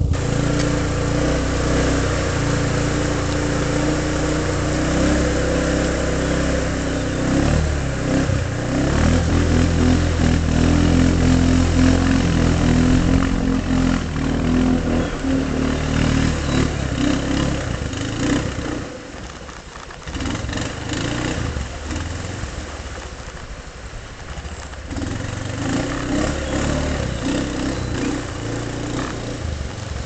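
Kawasaki Prairie 360 ATV's single-cylinder four-stroke engine running under load as the quad drives up a shallow creek, its pitch rising and falling with the throttle, with water splashing from the wheels. The engine grows fainter after about eighteen seconds as the quad pulls away.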